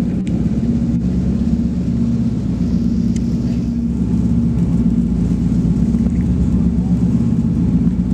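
Wright R-3350 radial piston engines and propellers of a Douglas DC-7B, heard from inside the cabin as a steady drone on final approach. A brief click comes near the start.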